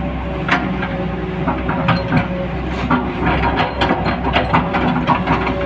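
Diesel engine of a JCB 3DX backhoe loader running steadily, with a run of sharp knocks and clatters starting about half a second in.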